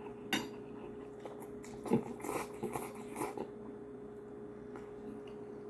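Close-up eating sounds: a click, then a handful of short chewing and mouth noises over the first three and a half seconds, over a faint steady hum.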